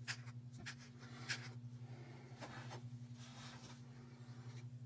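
Small plastic paint cups and a craft stirring stick being handled on a plastic-covered table: a few light, scattered clicks and scrapes, over a steady low hum.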